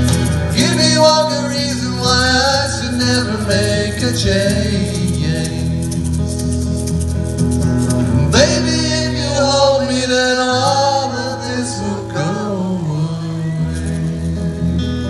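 Live acoustic band music: an acoustic guitar playing steadily over low held notes, with a melody line above it that slides between notes, and no words sung.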